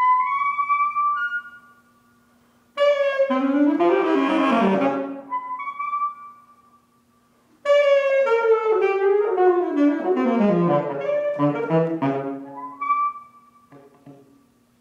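Alto saxophone playing contemporary concert music. It holds a high note, then plays two flurries of fast, dense notes that tumble downward, each followed by a short pause, and holds a high note again near the end.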